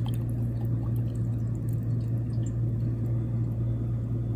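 Whiskey poured from a bottle over a large ice ball in a glass tumbler, under a steady low hum.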